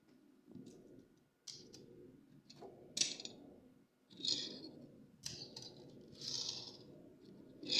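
Plastic and cardboard toy packaging being handled and opened: a string of sharp clicks and short crinkling rustles, about half a dozen, the loudest near the end.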